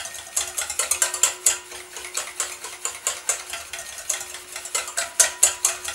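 Wire balloon whisk beating quickly and steadily in a stainless steel bowl, its wires clinking against the metal. Olive oil is being whisked into egg yolk and mustard to form an emulsion.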